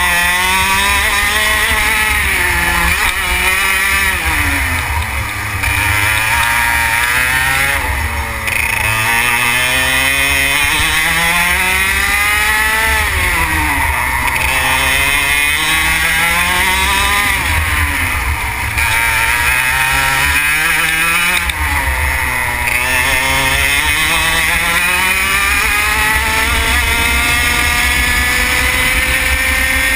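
Racing kart engine heard onboard at full speed, its revs climbing on each straight and dropping sharply into each corner, about every four to five seconds, over a steady low rumble.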